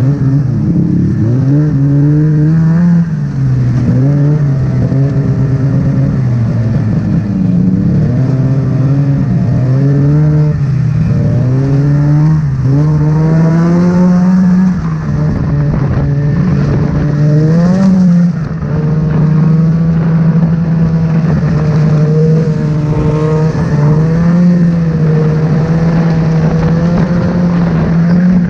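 Snowmobile engine running loud and continuous, its pitch rising and falling again and again as the throttle is worked, then holding a steadier note through the second half.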